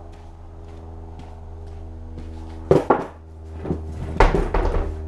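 Loud clunks and knocks of handling close to the microphone, two about halfway in and a cluster near the end, as the camera is reached for and grabbed. A steady low hum runs underneath.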